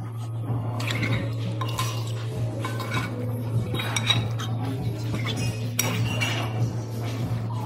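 Metal cutlery scraping and clinking against a ceramic bowl as creamy pasta is tossed and stirred, in a run of short irregular clicks and scrapes. A steady low hum lies underneath.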